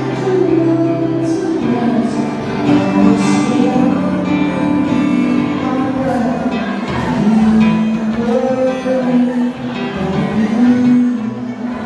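A man singing live into a microphone while strumming an acoustic guitar.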